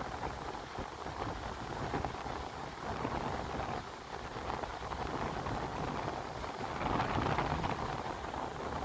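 Wind rushing across the microphone, a noisy hiss and low rumble that swells and eases every second or two.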